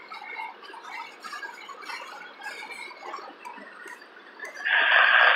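Covered hopper cars of a passing freight train rolling along the rails, with scattered short wheel squeaks and ticks. A loud, sustained wheel screech rises near the end.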